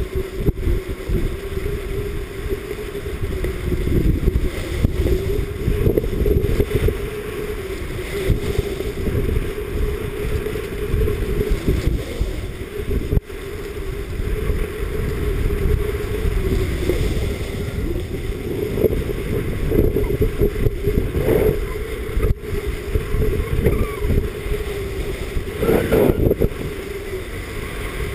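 Wind buffeting an action camera's microphone during a downhill ski run, deep and uneven, over the steady scrape and hiss of skis sliding on packed snow.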